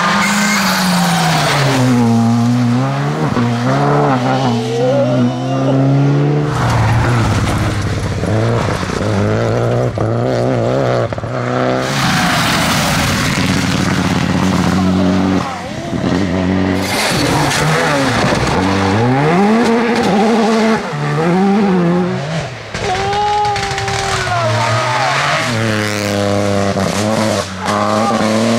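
Rally car engines revving hard, the pitch climbing and dropping again and again through gear changes and lifts, with several sudden jumps from one car's run to the next.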